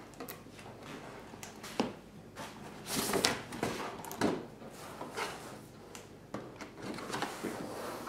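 Cardboard packaging being handled: the keyboard's inner box sliding out of its printed outer sleeve, with irregular scraping, rustling and light knocks. A sharp knock comes about two seconds in and a louder scrape about a second later.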